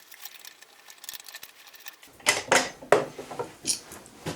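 Small metal clicks, clinks and scraping of a hand tool working screws out of a mini milling machine, sparse at first and busier from about two seconds in.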